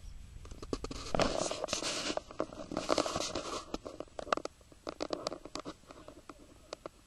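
Camera handling noise: rubbing and scratching right on the microphone, with many sharp clicks. It is thickest in the first four seconds, then thins to scattered clicks.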